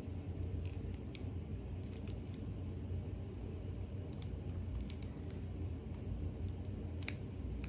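About a dozen faint, scattered clicks and ticks, irregularly spaced, over a low steady hum, with one sharper click near the end.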